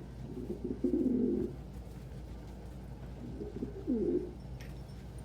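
Domestic pigeons cooing: one low coo about a second in and another near four seconds in, over a steady low hum.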